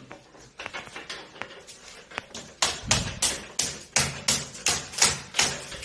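Repeated sharp knocks on a hard surface: a few faint scattered clicks at first, then from about halfway a steady run of about three knocks a second.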